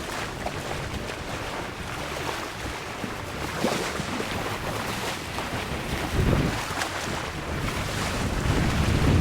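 Wind buffeting the microphone over the sound of moving water at the shoreline. The gusts get stronger near the end.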